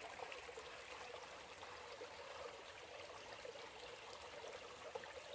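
Small creek running fast and swollen after heavy rain, a faint steady rush of flowing water.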